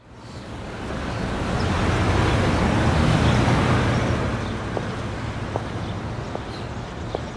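Steady city traffic rumble that fades in and swells, then settles. From about five seconds in come slow, evenly spaced footsteps, roughly one a second.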